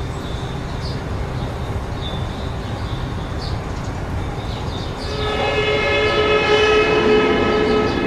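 Designed soundtrack: a steady low rumble with short high chirps, then about five seconds in a sustained, many-toned blare like a horn chord swells in and grows louder.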